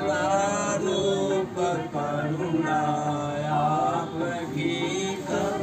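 Voices chanting Vedic mantras in a melodic, sung recitation that carries on without a break.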